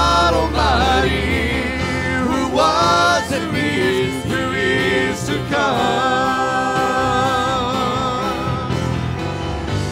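Live church worship band performing a slow praise song: singers' voices over keyboard, acoustic guitar and conga drums, with a long, wavering held note in the second half.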